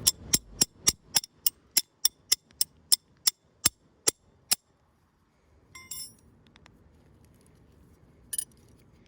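A series of about sixteen sharp metal-on-metal taps at roughly three a second, slowing slightly toward the end, as a tool works at a Torx bit stuck in a bolt. A brief clatter follows, then a single clink near the end.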